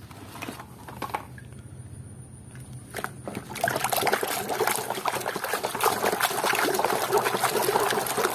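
A few light knocks of plastic toys handled in a plastic basket, then from about three and a half seconds in a hand sloshing and scrubbing toys in a tub of muddy water, a continuous splashing that gets louder.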